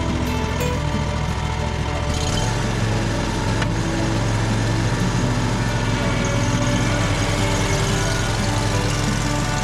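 Toro Z Master 4000 zero-turn mower's engine running steadily, its pitch stepping up about two seconds in and holding there.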